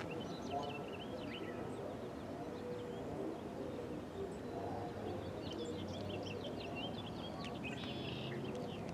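Small birds chirping in quick short notes over a steady low background rumble; the chirps come in bunches, most busily near the start and again toward the end.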